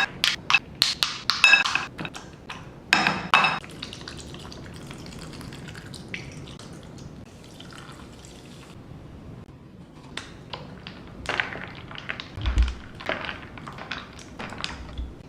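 Kitchen sounds of making fruit punch: hard clinks and knocks, some ringing like glassware, in a quick cluster over the first few seconds and again near the end, with liquid pouring and dripping.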